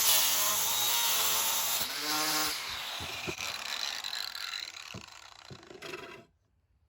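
Electric grinder with a cut-off wheel cutting through a welded steel stud: a loud, hissing grind with the motor's whine dipping under load. It stops abruptly near the end.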